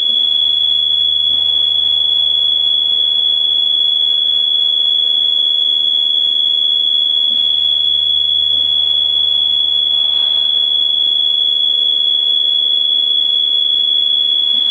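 A steady, unbroken high-pitched electronic alarm tone, holding one pitch without beeping or pausing.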